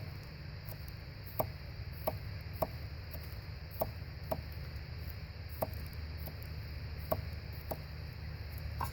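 Stainless steel knife chopping vegetables on a cutting surface: about ten sharp, separate knife taps at an uneven pace, roughly one every half second to second, over a steady low hum.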